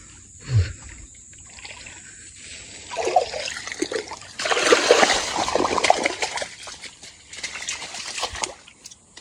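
Water splashing and sloshing as a hooked snakehead thrashes at the surface on the line. It starts about three seconds in, is loudest in the middle and dies away near the end.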